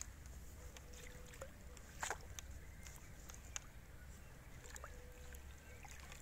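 Landing net lowered into pond water and swished to release a carp: faint water sloshing and small drips and ticks over a low steady rumble, with a sharper tick about two seconds in.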